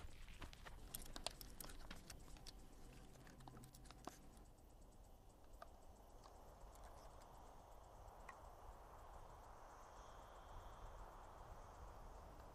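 Near silence: a faint hiss with scattered small clicks.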